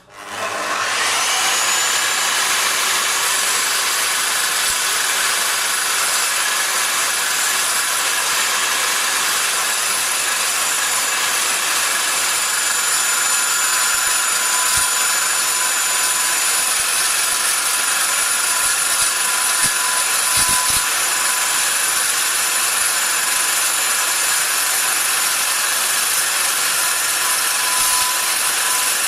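Carbide-tipped dry-cut metal chop saw starting up, reaching speed within about a second, then running steadily through a cut of 5 mm steel angle bar, a loud high-pitched cutting noise with steady whining tones.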